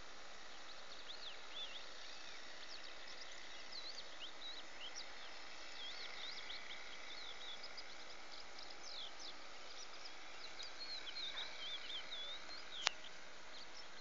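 Many small birds chirping and twittering over a steady outdoor hiss, with one sharp click near the end.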